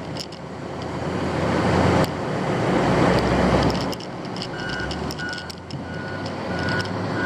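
Diesel engine of a front-end loader working, swelling and easing under load. About halfway through its reversing alarm starts beeping, about two beeps a second.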